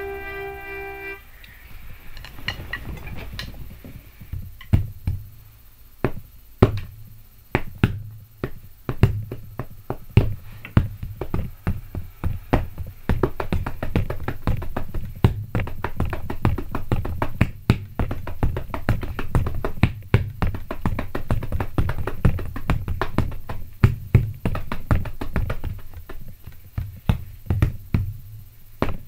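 A harmonica chord held for about a second, then drumsticks beating a fast rock rhythm on a bed and pillows used in place of a drum kit. A steady low hum runs underneath.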